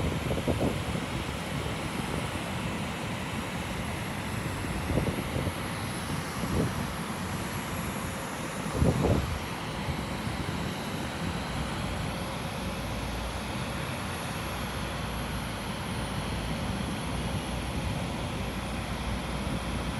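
Steady jet aircraft noise on an airport ramp: a constant rush with a thin high whine. A few dull knocks come through, the loudest about nine seconds in.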